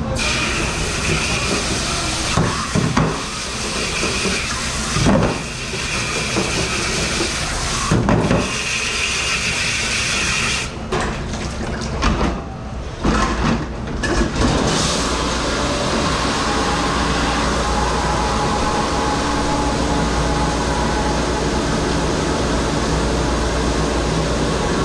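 Water from a commercial pre-rinse spray hose hissing against dishes and pans, stopping and starting several times, with dishware knocking now and then. About halfway through it settles into a steady hiss of running water with a faint machine hum.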